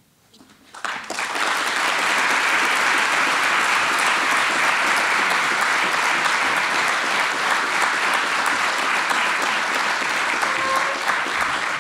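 Audience applauding. It starts about a second in, holds steady, and begins to thin out near the end.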